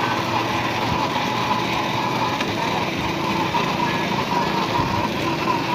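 Child's ride-on toy quad bike running, its small motor whirring steadily as it rolls along.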